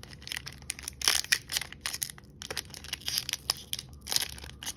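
Crinkly foil wrapper of a Pokémon booster pack being handled close to the microphone, crackling and crinkling in quick irregular bursts as hands try to tear it open.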